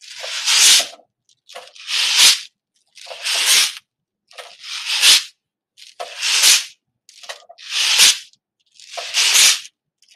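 Steel shot pouring down the length of a long tube each time the tube is turned end over end. Each pour is a rushing rattle that ends in a thud as the shot lands on the bottom. It repeats about every one and a half seconds, seven times. The falling shot turns its potential energy into heat.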